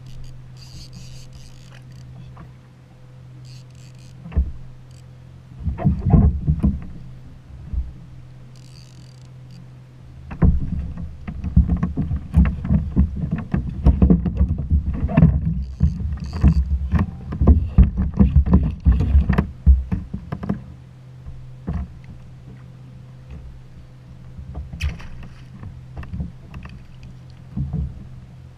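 Water slapping and knocking against a plastic fishing kayak's hull in loud irregular spells, over a steady low hum. Short high rattling bursts come from a fishing reel being cranked, mostly near the start, while a fish is fought and brought alongside.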